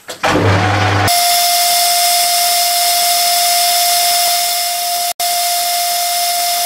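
Metal lathe starting up, then, about a second in, the cutting tool taking a turning cut on the journal of a forged crankshaft: a loud steady hiss with a steady whine, broken for an instant a little past the middle.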